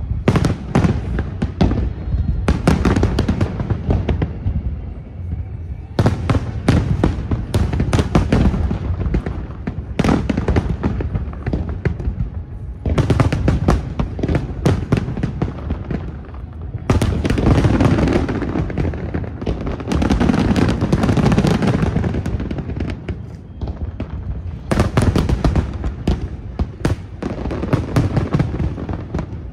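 Fireworks display: dense volleys of bangs and crackling over low booming, coming in waves every few seconds.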